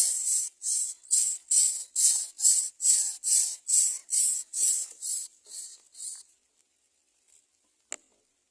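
A quick rhythmic series of raspy hisses, about two a second, growing fainter and stopping about six seconds in. A single sharp click follows near the end.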